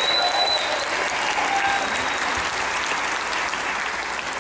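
Audience applauding at the end of a song, with a short high whistle near the start; the clapping slowly dies down.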